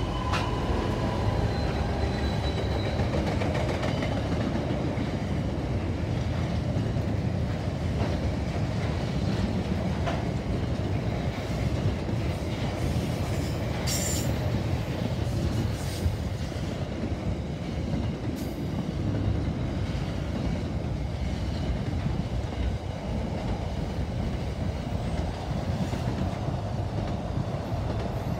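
Diesel-hauled intermodal container freight train passing close by. The locomotives' pitched engine note fades in the first couple of seconds, then the loaded container wagons roll past with a steady heavy rumble and clickety-clack over the rail joints. A brief high wheel squeal comes about halfway through.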